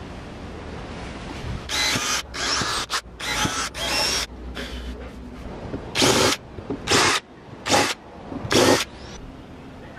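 Power drill boring small holes into the top of a wooden speaker box, in short bursts: a run of bursts from about two to four and a half seconds in, then four brief bursts about a second apart near the end.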